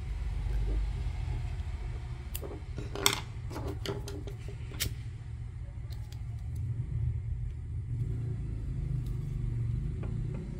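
A handheld lighter being flicked, a few sharp clicks between about two and five seconds in, to burn and seal the cut end of a nylon nautical cord. A steady low rumble runs underneath.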